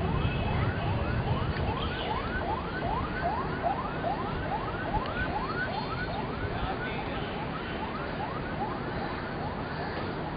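Siren in a fast yelp pattern: a quick rising sweep that repeats about three times a second and fades out near the end, over steady background noise.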